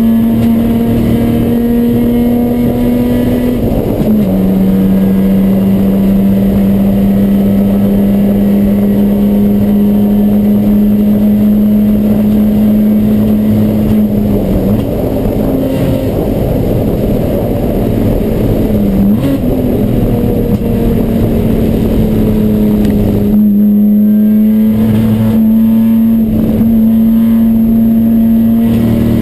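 Ford Probe race car's engine running hard under a misfire. Its note holds steady, drops sharply about four seconds in, and later dips and recovers a few more times as the revs change.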